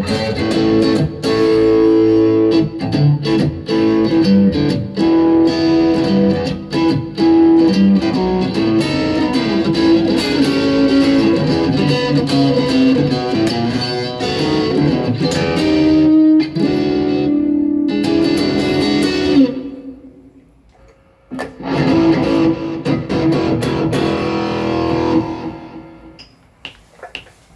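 Electric guitar played through a Boss GT-1000 Core multi-effects processor: a stretch of picked notes and chords, a short break about twenty seconds in, then more playing that ends on a chord left to ring and fade.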